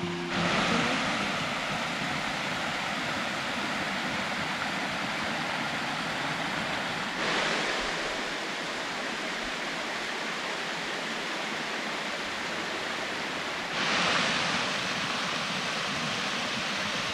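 A waterfall's falling water rushing steadily, swelling louder three times: just after the start, about seven seconds in, and about fourteen seconds in.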